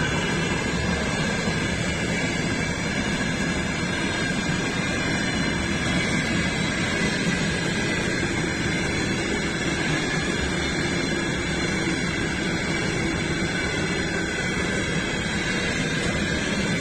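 Freight train of tank wagons rolling past on the rails: a steady rumble of wheels with a steady high ringing tone over it.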